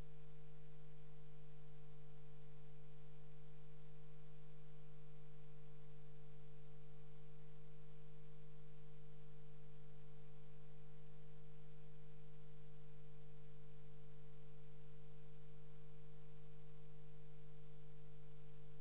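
Steady electrical hum, a low buzz that holds unchanged throughout with nothing else over it.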